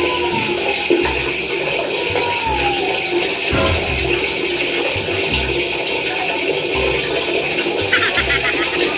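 Steady rush of running water in a tiled bathroom, going on without a break.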